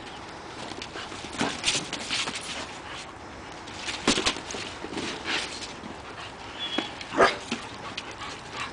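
Several dogs playing together, with short dog sounds coming every second or so.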